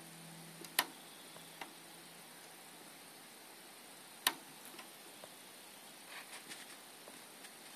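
Hard plastic clicks as a 6-pin PCIe power connector is worked into the cramped power socket of an Asus GTX 670 DirectCU II TOP graphics card: two sharp clicks, about a second in and about four seconds in, then a few soft ticks near the end.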